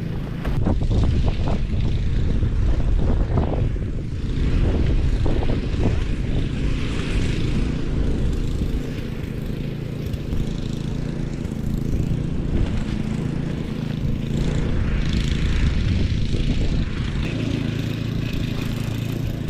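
A small engine running steadily, with wind buffeting the microphone.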